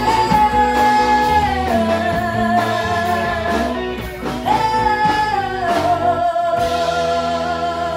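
A woman singing lead with a live country band and electric guitar. She holds two long notes, each stepping down in pitch, with a short break for breath a little after the middle.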